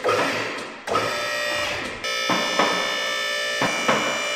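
A two-post car lift raising the car, its electric hydraulic pump motor whining steadily from about two seconds in. Short clacks come roughly in pairs as the safety locks ratchet past on the posts. A few knocks with ringing come before the motor starts.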